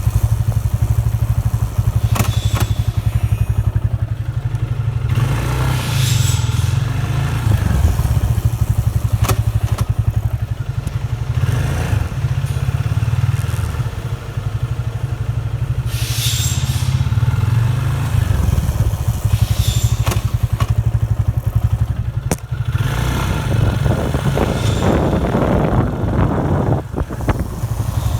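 Yamaha FZ25's single-cylinder engine running, with a grinding, scraping friction noise from the rear disc brake that comes and goes several times as the rear brake is applied. It is a grinding on firmer rear braking, which the owner wonders may be the ABS acting too early.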